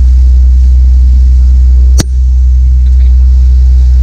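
Motorboat engine running steadily, a loud constant low drone. A single sharp click about halfway through.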